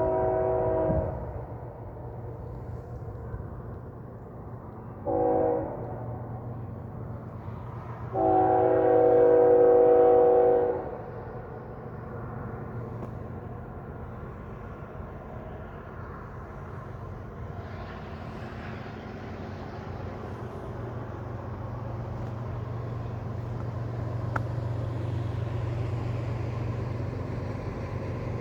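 BNSF diesel freight locomotive's air horn: a long blast ending about a second in, a short blast near five seconds and a long blast from about eight to eleven seconds, the close of the long-long-short-long grade-crossing signal. Under it runs the steady low rumble of the locomotives, with a hiss of wheels on rail building from about eighteen seconds as the empty grain cars roll by.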